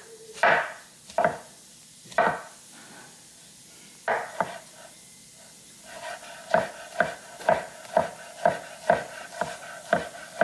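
Knife chopping on a cutting board: a few scattered strokes, then from about six seconds in a steady chop about twice a second.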